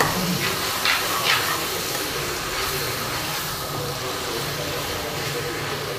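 Steel spoon stirring and scraping chicken pieces around a stainless-steel kadai, with three sharp scrapes in the first second and a half. Under them runs a steady hiss of the food frying in hot oil, with a low hum.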